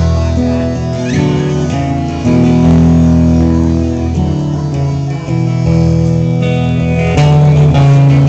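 Live instrumental passage from a small band: acoustic guitar and electric guitar playing together, with an amplified harmonica played into a microphone.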